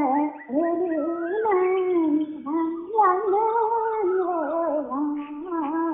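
A woman singing a Nepali folk melody unaccompanied: a single voice in long, wavering phrases that glide up and down in pitch, with brief pauses for breath between them.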